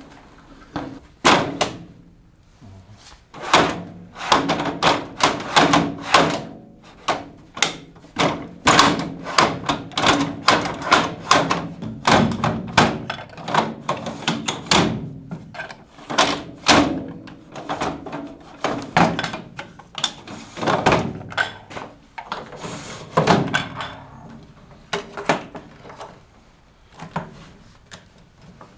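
A long run of irregular knocks, thuds and clatter, often several a second, from objects being handled and set down. There is a short lull near the start, and the strikes thin out toward the end.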